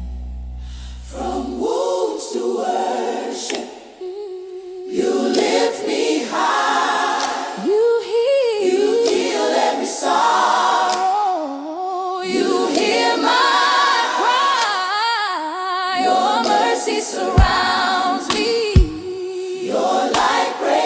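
Gospel R&B music: a low held chord fades out in the first second, then layered choir-style voices sing wordless, melismatic runs unaccompanied, and a deep kick drum begins to thump near the end.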